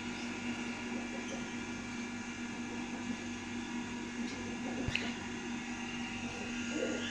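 Steady mechanical hum in the room, with a single knock about five seconds in as a small glass bottle is set down on the table.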